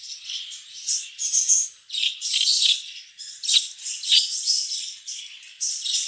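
English budgerigars chirping and chattering, high chirps coming thick and fast in short runs.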